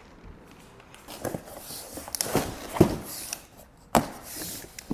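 Parts and packaging being handled: a few sharp knocks and clicks, the strongest about four seconds in, with short bursts of rustling between them.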